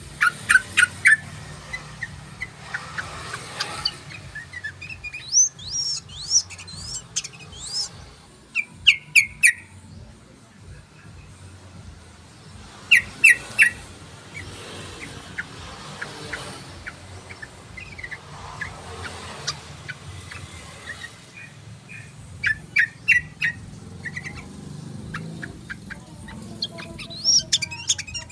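Yellow-vented bulbul (trucukan) song: bursts of quick, bubbling notes every few seconds, with a few higher gliding notes among them, over a steady low hum.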